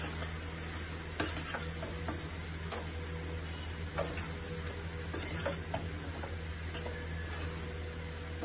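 Metal spatula stirring potatoes and long beans in a kadai, scraping and clicking against the pan at irregular moments, the strongest about a second in, over a faint sizzle and a steady low hum.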